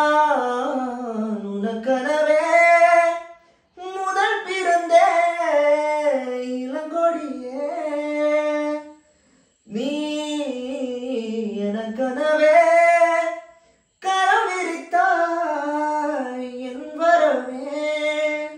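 A man singing a Tamil song unaccompanied, in four long phrases with short breaks for breath, his voice sliding between notes.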